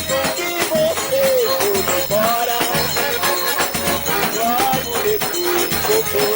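Forró pé de serra music on the sanfona (button/piano accordion), its melody sliding in pitch, over steady rhythmic percussion.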